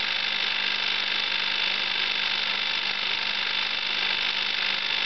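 LOMO Ukraine-7 16mm film projector running, its mechanism making a steady, even mechanical whir.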